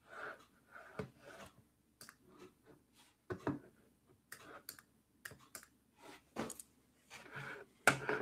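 Computer keyboard being typed on, in short irregular clicks and taps.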